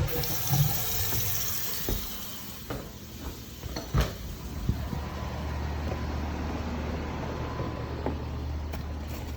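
Water running from a bathroom tap, with a couple of sharp knocks in the first few seconds and a steady low hum joining it about five seconds in. The water is draining out the sidewall into a broken underground downspout drain.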